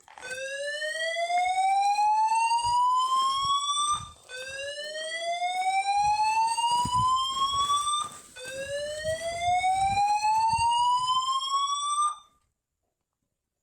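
Fire alarm sounding a slow-whoop evacuation tone: three rising sweeps, each climbing steadily in pitch over about four seconds, back to back. It cuts off about twelve seconds in.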